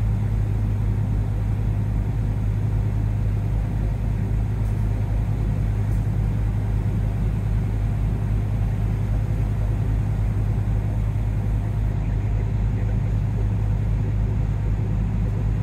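Sightseeing boat's engine running steadily, a constant low drone heard from on board.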